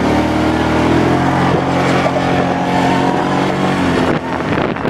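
Kawasaki Prairie 700 ATV's V-twin engine pulling under throttle, its pitch climbing at the start and then holding steady. A rush of broad noise joins it near the end.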